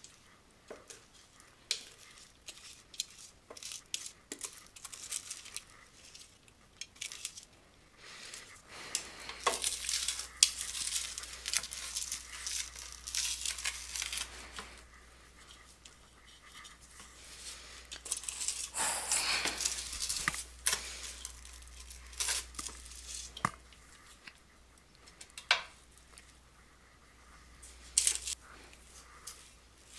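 Sticky marshmallow-coated rice cereal being scraped out of a metal pot into a cast-iron skillet: irregular scraping and crinkling with sharp clicks and knocks of metal, busiest about a third of the way in and again around two-thirds.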